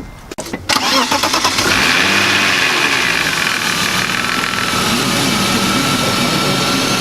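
BMW 2.5-litre inline-six being started: the starter cranks for about a second, then the engine catches and settles into a steady idle.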